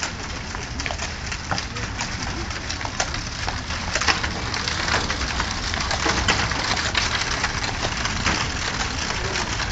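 A horse's hooves clopping and a carriage's wheels rolling on a paved path as a horse-drawn carriage passes close by, in irregular sharp knocks over a steady low rumble.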